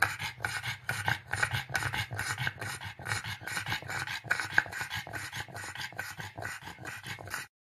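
Elderly pug panting fast with its tongue out, several quick breaths a second in an even rhythm; it cuts off suddenly just before the end.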